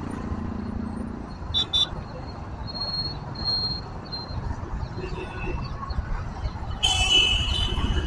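Busy road traffic of motorbikes, scooters and auto-rickshaws going by, with a steady low rumble of engines and wind. Two short horn beeps come about a second and a half in, and a longer horn blast near the end is the loudest sound.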